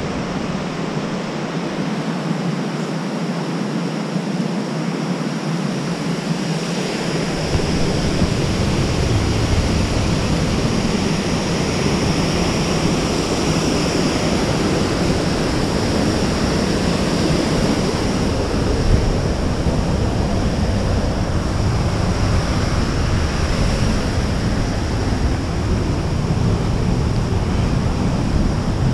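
Waterfall and creek water rushing in a steady, loud hiss. A low rumble on the microphone joins it about seven seconds in.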